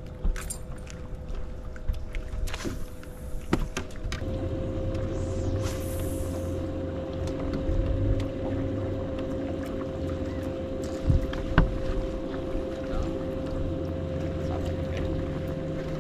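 Bass boat's electric trolling motor running with a steady hum that grows fuller and louder about four seconds in. Scattered clicks and knocks and some wind noise come through over it.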